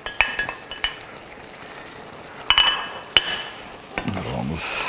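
Metal utensil tapping and scraping as sliced leeks are pushed from a cutting board into a pan, then two sharp ringing clinks of metal on the pan about two and a half and three seconds in, as the risotto is stirred.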